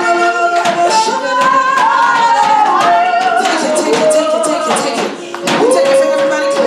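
A woman singing a worship song into a microphone in long, held, gliding notes, with clapping and hand percussion keeping time.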